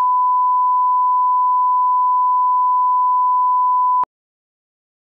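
Broadcast line-up test tone accompanying colour bars: a single steady 1 kHz reference beep at one unchanging pitch, cutting off abruptly about four seconds in.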